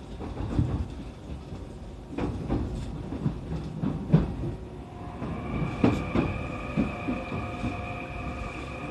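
E531-series electric train running over rail joints and points, with irregular knocks and clatter over a low rumble; about five seconds in, a steady high whine of several held tones joins.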